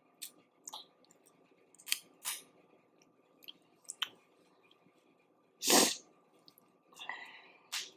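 Boiled crawfish being peeled and eaten: scattered sharp cracks and snaps of the shells, with one short, louder burst of noise about six seconds in.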